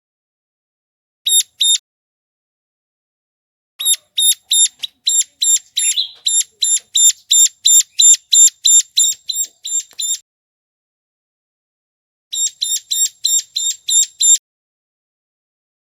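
Hill prinia (ciblek gunung) calling: a fast string of short, sharp, high-pitched notes, about four a second, in bursts of a couple of notes, then a long run of about six seconds, then another run of about two seconds, with silence between. A bird-trapping lure call.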